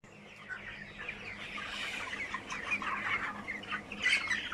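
A flock of broiler chickens, many birds peeping and chirping at once in a dense, overlapping chatter that grows busier toward the end, over a steady low hum.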